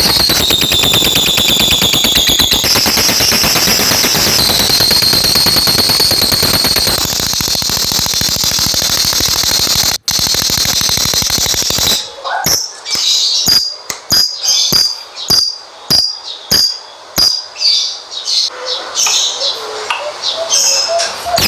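Lovebird 'ngekek' song: a long, fast, unbroken buzzy chatter with a high whistling tone that shifts up and down in steps. About twelve seconds in it breaks into separate short chirps and clicks.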